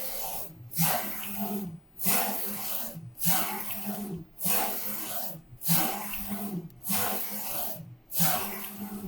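Focus Alpha Max 6250 UV flatbed printer printing the white layer. The print-head carriage sweeps back and forth, each pass a hissing whir of about a second over a low motor hum, starting afresh about every 1.2 seconds.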